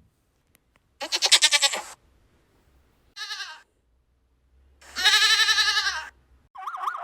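A farm animal bleating three times, each call quavering; the middle one is short and the last is the longest.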